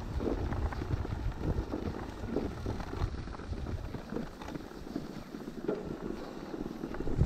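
Mountain bike riding over a bumpy grass track, with irregular knocks and rattles from the bike and wind rumbling on the microphone, the rumble easing in the second half.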